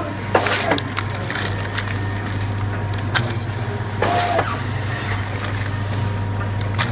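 Automatic powder packaging machine running, with a steady motor hum. Its bagging cycle repeats about every three and a half seconds: a sharp clack, then a short rush of noise with a brief whine, as each bag is sealed and cut off.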